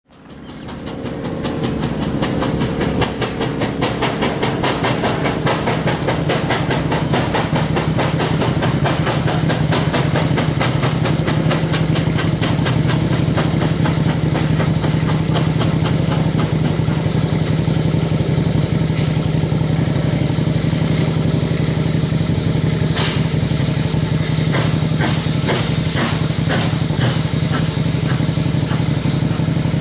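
Steam locomotive working with a steady beat of exhaust chuffs and steam hiss as it approaches, fading in over the first couple of seconds. A motorcycle engine idles steadily underneath.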